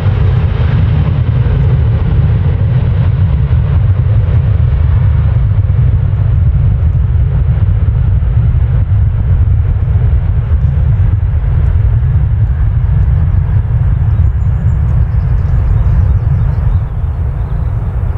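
Deep, steady rumble of jet airliner engines, loud throughout, its higher hiss fading slightly over the first few seconds.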